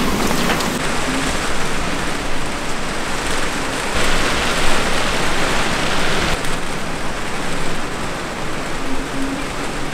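Heavy rain and strong wind in a storm, a steady rushing hiss of rain beating down, louder for a couple of seconds midway.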